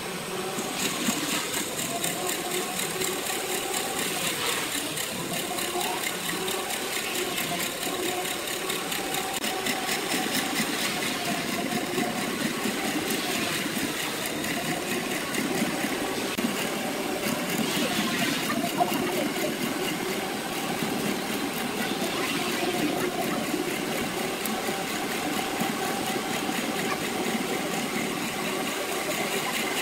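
Wood lathe running steadily while a turning tool cuts the spinning wood: the motor's wavering drone sits under a continuous scraping, grainy cutting noise.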